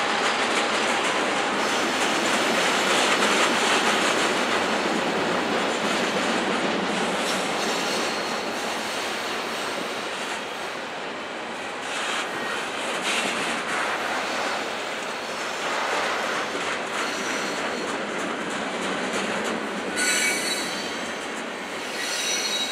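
Freight train of flatcars loaded with steel pipe rolling past: a steady rush of steel wheels on rail with repeated clacks as the trucks pass. Short high-pitched wheel squeals come now and then, the strongest about twenty seconds in.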